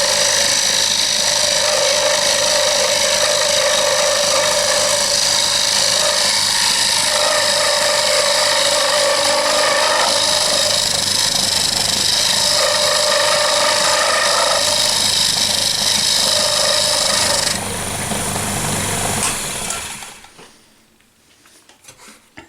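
Small wood lathe running steadily with a hand tool cutting the spinning wooden knife handle, a continuous motor hum under a rasping cut that comes and goes. The motor is switched off about three-quarters of the way through and winds down to quiet.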